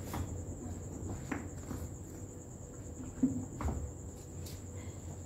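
Steady high insect trill, like crickets, going on without a break, with a few soft knocks and scrapes a little after one second and between three and four seconds in as garden pots are handled.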